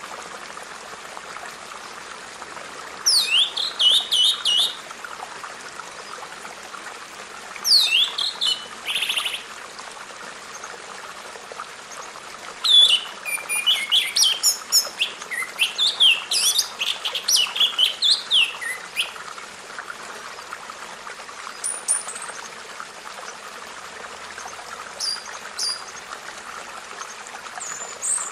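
Birds singing in short phrases of quick, high, falling notes, with a longer run of song in the middle and fainter calls toward the end, over a steady background hiss.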